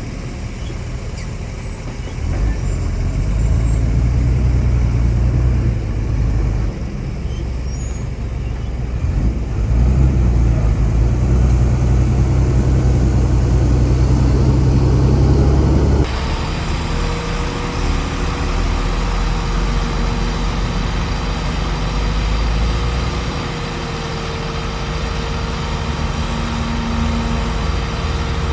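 Heavy diesel earthmoving machinery running under load with a deep engine rumble. About halfway through, the sound changes abruptly to a steadier engine note with a faint steady whine.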